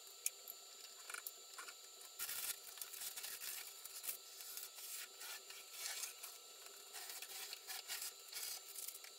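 Masking tape and masking paper being peeled off a spray-painted 3D-printed plastic plane fuselage. It comes as faint, irregular rustling, crinkling and rubbing in short bursts, with a few sharper ticks.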